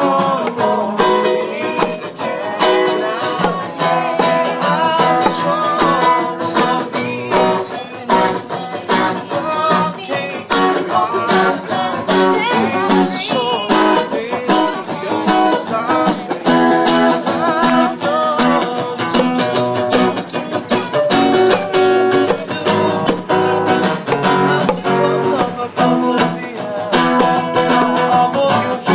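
Acoustic guitar music, strummed and picked, with a voice singing along.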